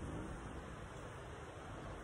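Steady wind, a low rumble of wind on the microphone with a light hiss over it.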